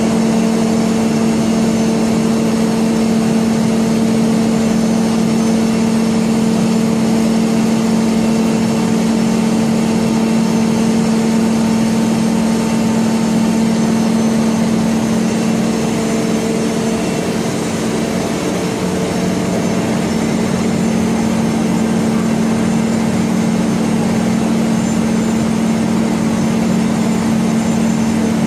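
Steady machine hum: a constant low tone over an even hiss, from motor-driven equipment running without a break.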